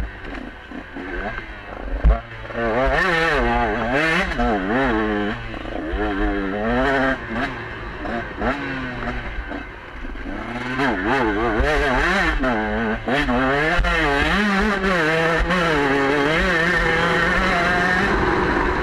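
KTM 125 two-stroke enduro motorcycle engine, heard from the bike, revving up and down again and again under hard throttle, then held at high revs for the second half. A sharp knock comes about two seconds in, with scattered clatter from the bike over the rough ground.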